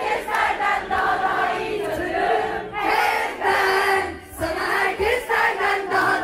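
Large concert crowd singing a pop song together, many voices carrying the melody in unison.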